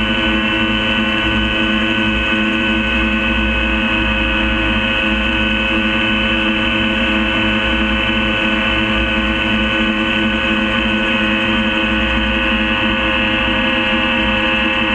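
Gyrocopter engine and propeller running at a constant cruise setting: a loud, unchanging drone made of several steady tones over a low rumble.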